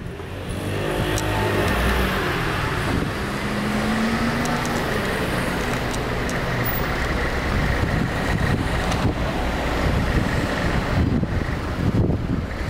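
A car driving past close by, a steady engine and tyre noise with a slight engine tone, dying away near the end.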